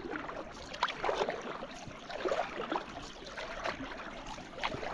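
Oars dipping and splashing as a small boat is rowed across calm water, with water trickling and gurgling between strokes, a stroke roughly every second.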